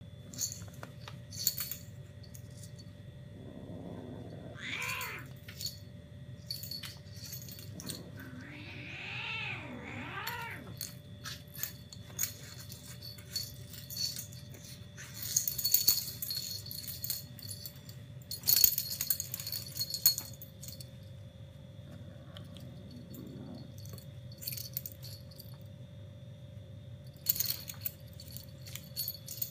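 Two Egyptian Mau kittens play-fighting, with a few short growling yowls, the longest about nine seconds in. Around them is the scuffle and scratching of their claws on the fabric bed and tile floor, in bursts.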